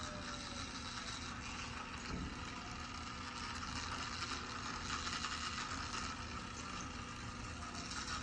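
Small battery-powered toy car running along a plastic track: a steady motor whir with the wheels rattling over the track pieces.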